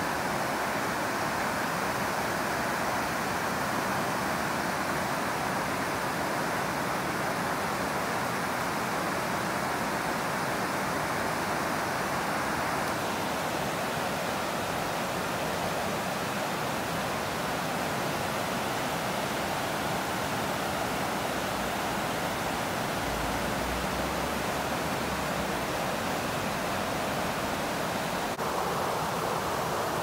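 River water rushing steadily over a low weir and through shallow rocky riffles, an even, unbroken rush of white noise.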